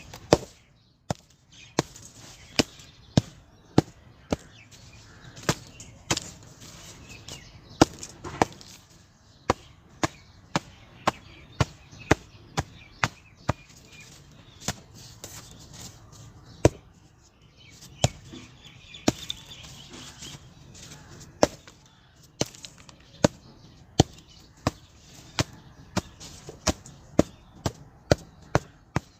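Lumps of hardened reused cement being struck over and over to break them into pieces: sharp, separate knocks at an irregular pace of about one to two a second.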